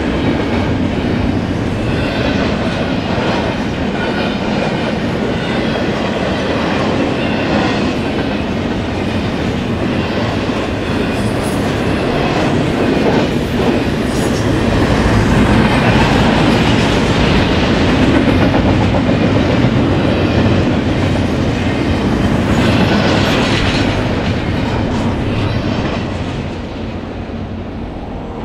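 BNSF freight train's cars rolling past with a steady rumble and rattle of wheels on rail, easing off a little near the end.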